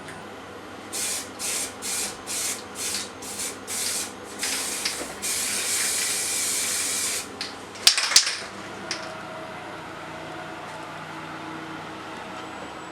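Pressurised gas hissing out of a nozzle in a run of about eight short bursts, then longer ones and a steady hiss of about two seconds, followed by a couple of sharp clicks.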